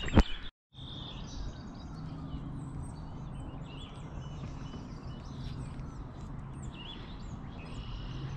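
Small birds chirping and calling repeatedly over a steady low hum of outdoor background noise, after a sharp click and a brief dropout about half a second in.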